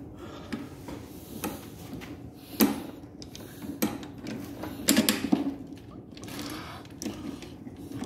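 Irregular clicks and knocks of a bolt being worked through the mower's metal handle tubes and a plastic tightening knob being fitted onto it.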